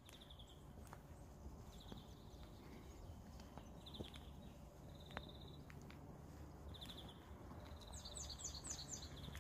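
Birds singing faintly in the trees: short trilled phrases every second or two, and near the end a run of quick notes falling in pitch, over a low steady hum.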